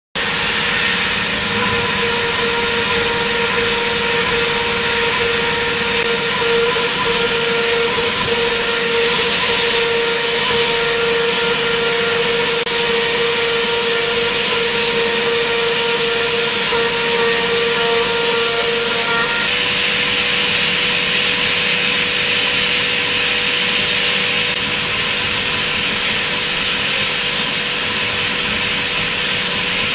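CNC machining-centre spindle and end mill cutting a cavity into a metal block: a steady high whine over the constant hiss of the cutter, during Z-level roughing and then rest machining. About two-thirds of the way through, the whine drops back and a brighter hiss takes over.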